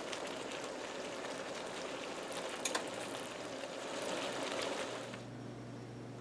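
Vegetables sizzling and bubbling in a frying pan, with a light click or two near the middle; the sizzle drops away about five seconds in.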